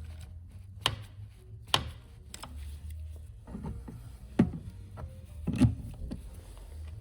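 A handful of sharp knocks and clicks, about five in all, from tools or parts being handled, over a low steady hum.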